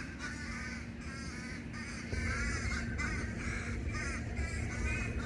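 A flock of boat-tailed grackles calling, many short rising-and-falling calls a second overlapping, with a low rumble coming in about two seconds in.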